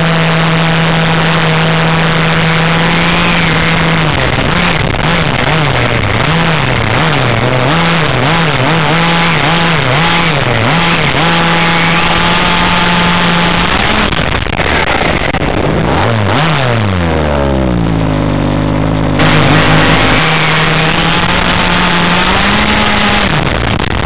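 Nitro RC car's small glow engine running hard, first at steady high revs, then rising and falling quickly over and over as the throttle is worked, with a few deeper drops in pitch before it settles at steady revs again. The clutch slips badly, so high revs bring little drive.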